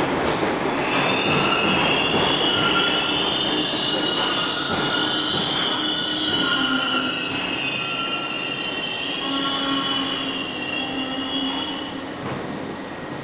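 R62A subway train pulling out of the station, with a high wavering squeal over the running noise and two short hisses of air about six and nine seconds in. The sound fades near the end as the train leaves.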